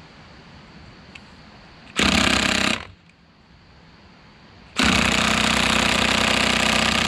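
Cordless impact wrench hammering on a stubborn nut: a short burst just under a second long, a pause, then a longer burst starting nearly five seconds in. The owner suspects its battery is getting low.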